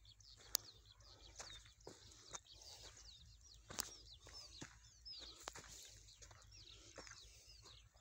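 Small birds chirping over an open field, many short falling calls repeated throughout, faint. Scattered sharp clicks and taps run under them, the loudest about half a second in and another a little before four seconds.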